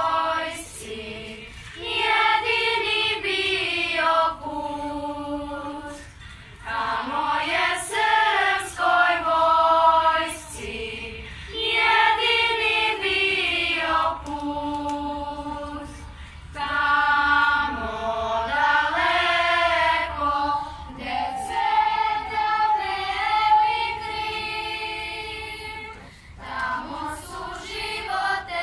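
Children's choir singing together in phrases of about five seconds, with short pauses for breath between them.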